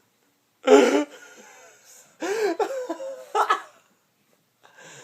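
A person laughing in short bursts: one loud burst about a second in, then a few more between about two and three and a half seconds.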